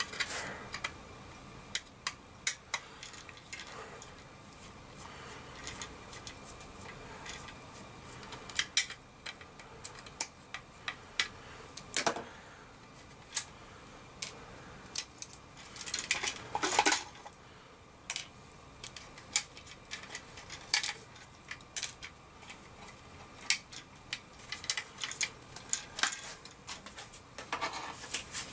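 Scattered clicks, taps and short scrapes of hard plastic parts being handled: a metal detector's control housing being unscrewed and turned over, with a screwdriver set down on the bench. There are a few longer scrapes about 12 s in and again around 16 to 17 s.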